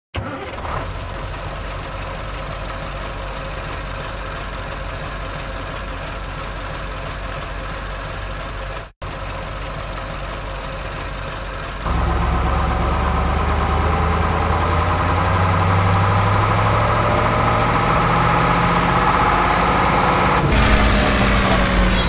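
Truck engine idling steadily, broken by a short gap about nine seconds in. It jumps louder and runs harder at about twelve seconds, and its pitch sinks near the end.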